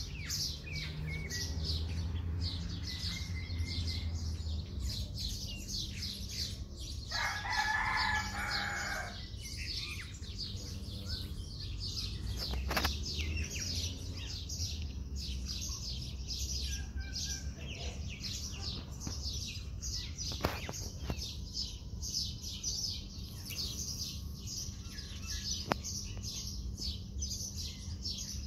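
Many small birds chirping without pause, with a rooster crowing once for about two seconds, about seven seconds in. A steady low hum lies underneath.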